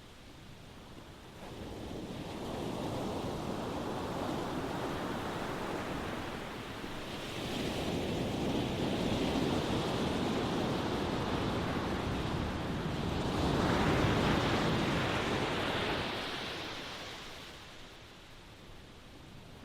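Ocean waves breaking and washing up the shore, the surf swelling and fading in slow surges, loudest a little past the middle and dying away near the end.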